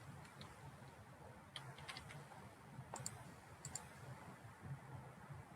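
Faint computer mouse clicks, a handful scattered singly and in quick groups, over a low steady hum.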